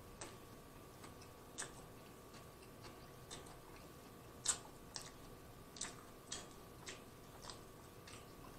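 Faint close-miked chewing sounds from a mouthful of corned beef sub: soft wet clicks and lip smacks at an uneven pace, about one every half second, the loudest near the middle. A faint steady hum runs underneath.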